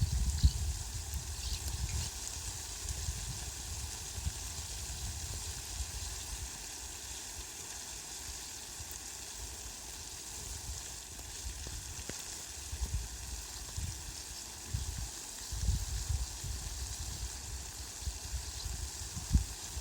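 Heavy rain falling on leafy plants, a steady hiss, with a low rumble that swells and fades several times.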